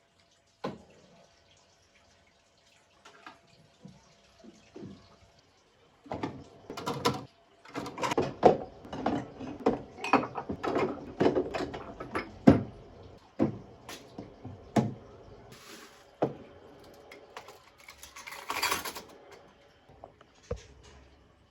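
Household sounds at a sink: objects knocking and clattering, with dripping and splashing water, and a short rush of running tap water near the end.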